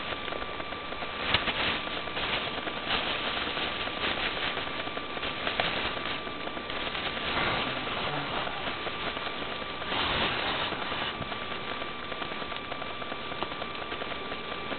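Plastic bag of ammonium nitrate crinkling and rustling in short bursts as it is wrapped by hand around a dynamite stick and its fuse, over a steady hiss with a thin high hum.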